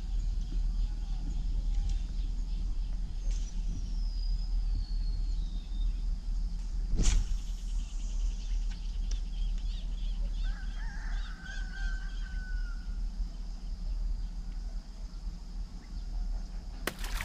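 Outdoor ambience with a steady low rumble of wind on the microphone and birds calling: a falling whistle about three seconds in and another, lower one around ten seconds in. A single sharp click sounds about seven seconds in.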